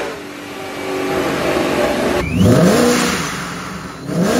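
Supercharged Coyote 5.0 V8 of a 2022 Mustang GT with an ESS G3X centrifugal supercharger being revved in two short clips, first with a Precision blow-off valve, then, after a cut about two seconds in, with a Tial 2 psi blow-off valve. The revs climb, drop and climb again, with a bright hiss as the blow-off valve vents.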